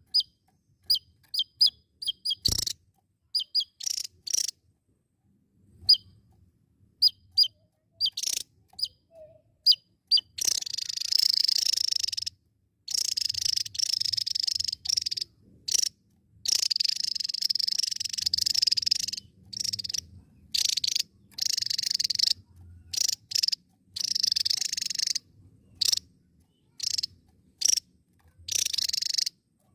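Javan tesia singing: first a string of short, sharp, high chirps, then, from about a third of the way in, longer high trilling phrases lasting a second or two each, separated by short pauses.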